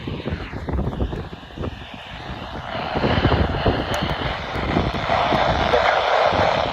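Hiss of radio static from a weather radio being tuned between stations, with crackles and low knocks. The hiss gets louder about three seconds in.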